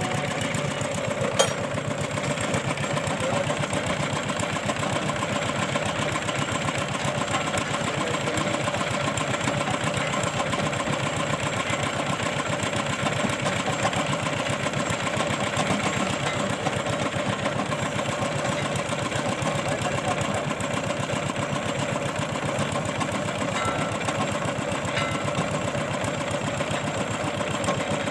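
Engine of a tube-well boring machine running steadily with a fast, even chugging. A single sharp knock comes about a second and a half in.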